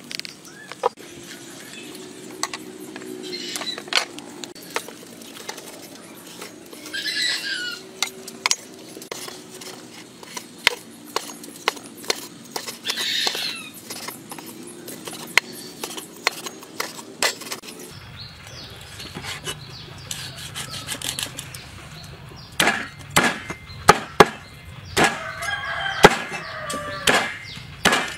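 A cleaver chopping roast pork on a cutting board: a run of sharp knocks, growing heavier and closer together in the last several seconds.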